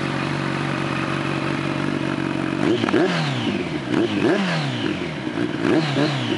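Kawasaki ZX-10R inline-four running through a Scorpion RP-1 GP slip-on silencer. It idles steadily, then from about two and a half seconds in it is revved in short throttle blips, mostly in quick pairs, each rising sharply and dropping back toward idle.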